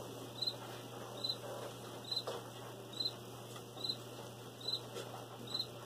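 A cricket chirping: short high chirps repeating about once a second, seven in all, over a low steady hum.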